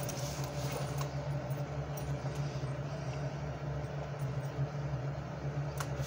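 Steady low hum of room noise, with a few faint clicks of small pocket gear being handled.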